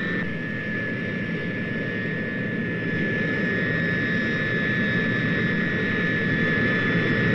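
Tu-95 bomber's four turboprop engines with contra-rotating propellers running on the ground just after start-up: a steady high whine over a dense rumble, growing a little louder about three seconds in.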